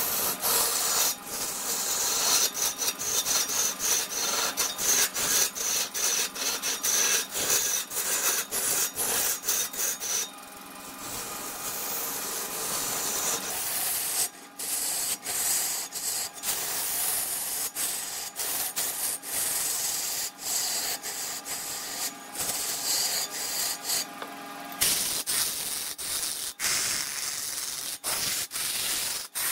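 A hand tool scraping against wood spinning on a woodturning lathe: a steady rasping hiss full of rapid clicks, broken off a few times for a moment.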